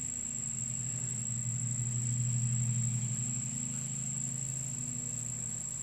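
A steady low motor hum like an idling engine, swelling slightly a couple of seconds in, with a thin, steady high-pitched tone above it.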